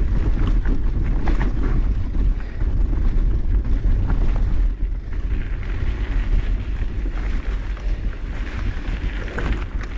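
Wind rumbling on the microphone of a rider's camera while mountain biking, a steady low buffeting that eases a little about halfway through.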